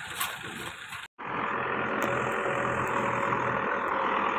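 Diesel engine noise from earthmoving machinery. After a brief dropout about a second in, a Caterpillar 424 backhoe loader's engine runs steadily and much louder, close by.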